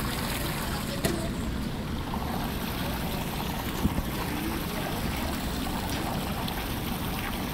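Steady flowing water, like a stream or small waterfall, with a light knock about a second in and another near four seconds.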